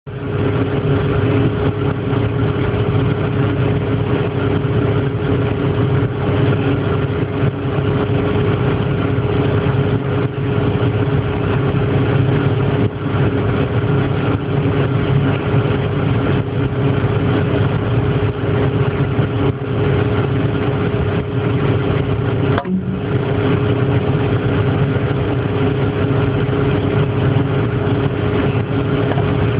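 A steady mechanical hum with a constant low tone, dropping out for a moment about 23 seconds in.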